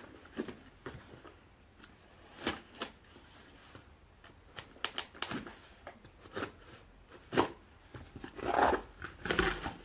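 Scissors cutting and scraping along the packing tape of a cardboard box: a string of separate sharp snips and scrapes, then a longer rustle of tape and cardboard near the end as the box is pulled open.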